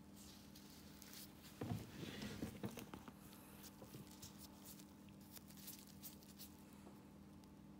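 Faint rustling and light knocks of gloved hands handling a bare foot, loudest for about a second starting near two seconds in, with scattered soft clicks over a low steady hum.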